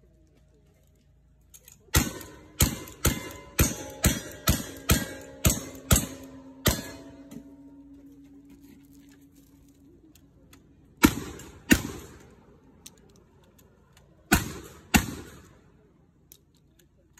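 Gunfire from a cowboy action shooting stage with black-powder guns: a fast string of ten shots about half a second apart, with metal targets ringing on after them for a few seconds. Then two pairs of shots a few seconds apart, each pair about half a second apart.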